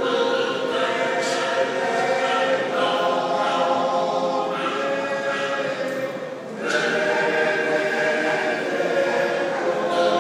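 Congregation singing a hymn together in long held notes, with a short break about six and a half seconds in before the next line begins.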